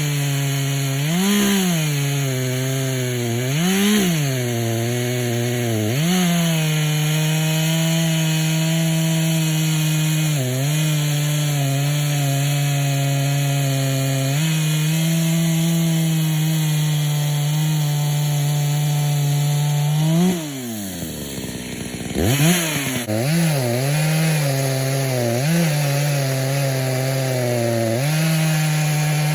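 Echo CS-590 two-stroke chainsaw, tuned on the rich side, running hard while cutting wood with a 20-inch bar. Its engine pitch holds steady in the cut and swings up and down several times; about 20 s in the revs fall right down for a moment, then the saw is blipped several times before it settles back to a steady pitch.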